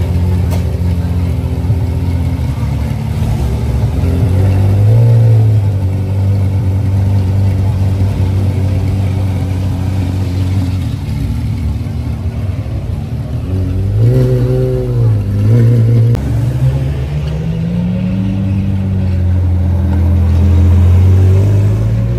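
A sports car's engine runs with a low, steady note and is revved in short blips: one about four seconds in, two quick ones around fourteen seconds, and a slower rise in pitch near the end.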